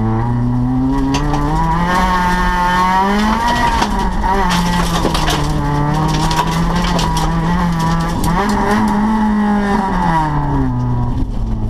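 Rally car engine heard from inside the stripped-out cabin, pulling hard and rising in pitch, easing back and holding steady, then climbing again about eight seconds in before dropping back near the end as the car comes off the throttle.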